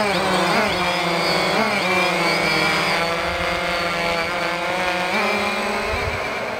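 Quadcopter drone flying close by: a buzzing propeller hum whose pitch keeps shifting up and down as the motors change speed, with a step up about five seconds in. It grows slightly fainter near the end.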